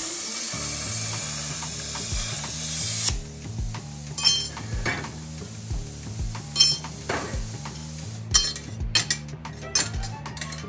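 Handheld plasma cutter with a drag tip cutting steel square tubing: a loud, steady hiss that stops abruptly about three seconds in. Background music with a steady low beat runs underneath, with a few short clicks and brief hisses later on.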